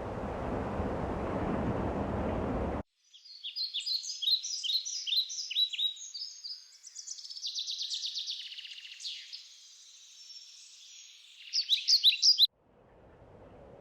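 Small songbirds singing high-pitched phrases: a run of quick downward-sweeping chirps, then a fast trill, ending in a burst of loud sharp notes. Before the song, about three seconds of steady background noise cuts off abruptly; fainter steady noise returns near the end.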